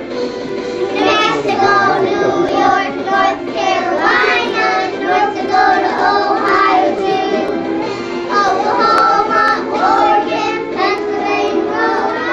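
A group of young children singing together, a song that names the fifty US states in alphabetical order.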